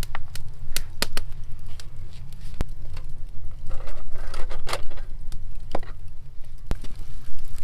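Copper tray with a cezve and lidded pot set down and shifted on gravel, a scraping rattle about four seconds in, amid scattered sharp clicks and knocks over a steady low rumble.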